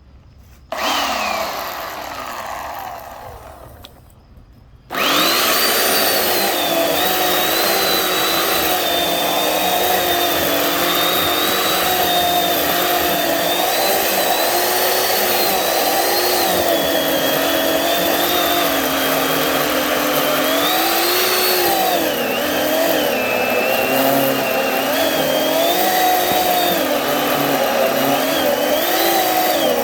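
Poulan Pro electric chainsaw: a short squeeze of the trigger about a second in, its motor whining down over a few seconds, then run continuously from about five seconds with its pitch wavering and dipping as it is worked against the wood. Its chain is mounted backwards, so it is running but not cutting properly.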